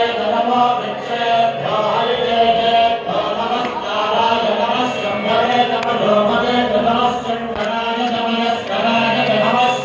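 Loud devotional chanting over a sound system, sung in long held phrases.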